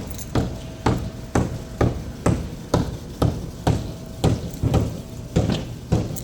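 Background music with a steady percussive beat: sharp, knock-like hits about two a second over a faint held tone.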